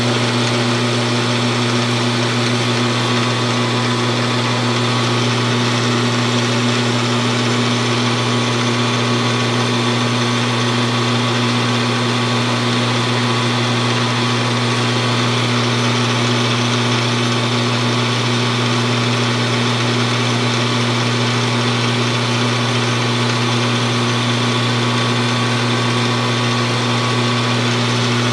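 Metal lathe running steadily with a small part spinning in its chuck. It makes a constant low hum over an even hiss.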